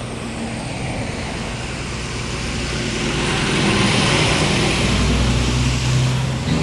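A motor vehicle passing close on the road, engine hum and tyre noise growing louder up to about four seconds in and staying loud to the end.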